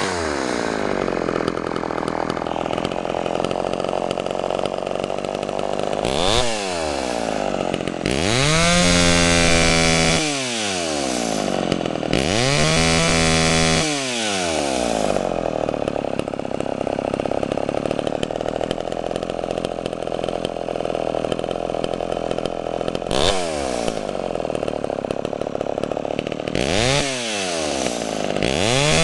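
Vintage Homelite XL130 two-stroke chainsaw with electronic ignition idling steadily and revved up and back down several times, two of the revs held high for about two seconds. It runs well after starting.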